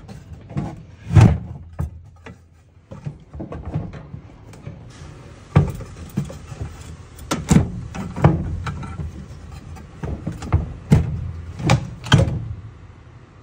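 Irregular knocks and thumps, a dozen or so, from work on a Sanyo inverter washing machine's inner tub and shaft as it is taken apart. The loudest knock comes about a second in, with another loud cluster near the end.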